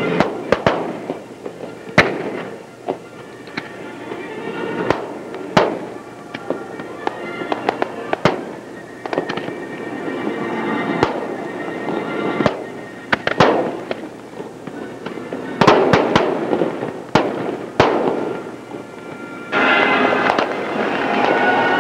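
Fireworks display: shells bursting in sharp, irregular bangs, several close together at times, over music playing continuously in the background. Near the end the background becomes suddenly louder.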